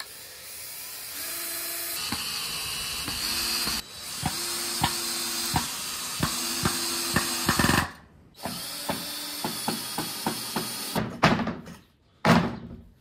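Cordless drill driving screws into a wooden bed frame, its motor whining steadily in two long runs with even ticking over it. A few loud knocks near the end.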